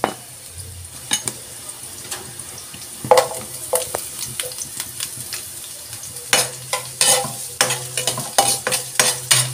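Ginger and red onion sautéing in hot oil in a nonstick wok: a steady sizzle, with a spatula scraping and tapping against the pan, the scrapes and taps coming thick and fast in the last few seconds.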